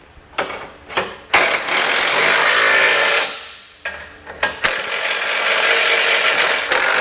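Cordless impact driver with a 15 mm socket tightening base plate bolts into handle nuts behind a car's frame. It runs in two long bursts: the first from about a second in, lasting about two seconds, and the second from just past the middle, running on past the end. A few short clicks come before each burst.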